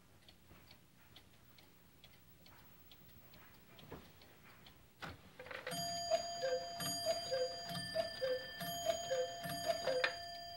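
Cuckoo clocks striking together: an Anton Schneider chalet cuckoo clock and an older cuckoo clock. Pendulum ticking runs under a couple of loud clunks as the strike train releases. Then a music-box tune starts and five two-note cuckoo calls sound over it.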